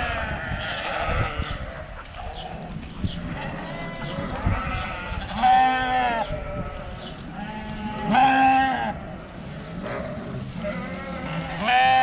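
A large flock of dark-faced sheep bleating as it moves along. Scattered calls throughout, with loud, drawn-out bleats about halfway through, again around two thirds in, and at the end.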